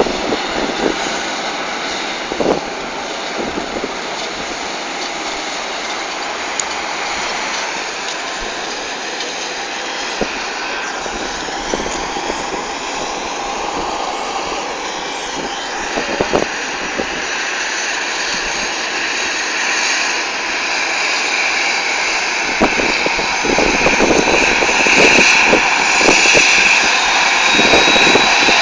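Jet airliner engines running with a steady rush. The sound grows louder over the last several seconds as a high whine strengthens.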